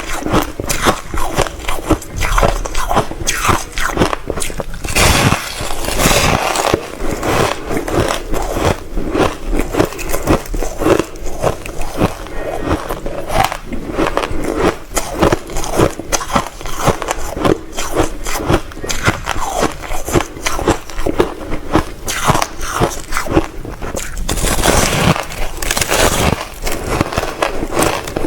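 Reshaped crushed ice being bitten and chewed close to the microphone: a rapid, continuous run of crisp crunches, with a longer, denser stretch of crunching about five seconds in and another near the end.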